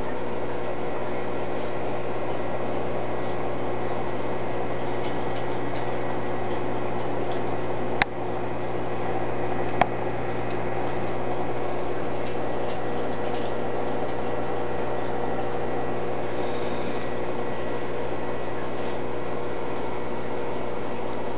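Steady hum and whine of running nano reef tank equipment, broken twice by a sharp snap a couple of seconds apart: the claw snap of a pistol shrimp.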